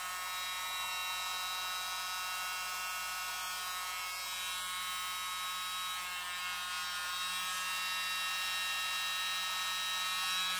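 Westminster World's Smallest Blower, a USB-powered mini fan with a straw taped onto its nozzle, running steadily: an even, high motor whine that holds one pitch.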